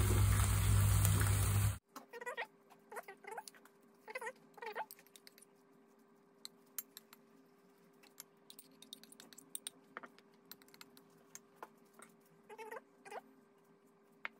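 For the first two seconds, a loud steady hiss with a low hum from the pan of macaroni on the stove, which cuts off suddenly. Then, much quieter, a metal spoon scraping and patting a crumb topping across a glass baking dish in short scratchy strokes, with scattered light clicks.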